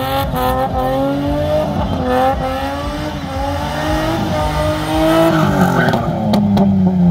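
Car engine held at high revs while the car spins donuts, tyres screeching. The engine note climbs in long sweeps, dipping about two seconds in, peaking near five seconds and falling toward the end.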